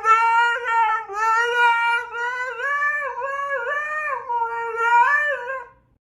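A dog howling in one long, wavering note that dips and rises in pitch, then breaks off near the end.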